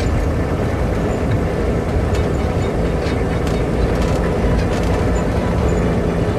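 Praga M53/59 self-propelled anti-aircraft truck driving over a gravel track: steady heavy engine and drivetrain rumble with tyre noise, and scattered clicks and rattles from the vehicle's body.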